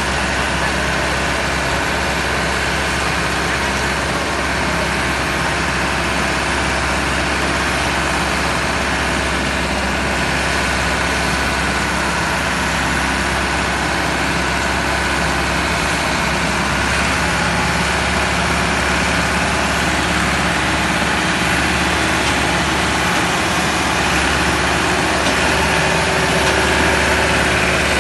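Massey Ferguson 375 diesel tractor engine running steadily under heavy load, pulling a trolley piled high with sugarcane; it gets a little louder near the end.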